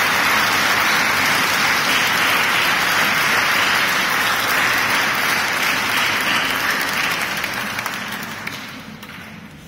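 A churchful of people applauding with steady, dense clapping that dies away over the last two seconds or so.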